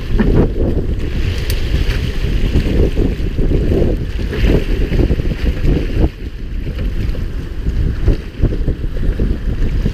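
Wind buffeting the microphone aboard a boat at sea, an uneven low rumble over the wash of the waves.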